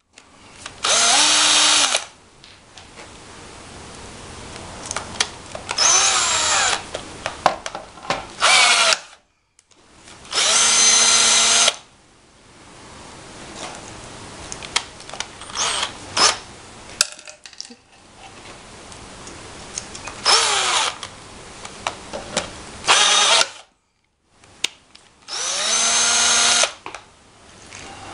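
Cordless drill driving a pop-rivet adapter, whining in repeated short bursts of a second or two, about eight times, as blind rivets are set one after another. Quieter clicks and handling noise come between the bursts.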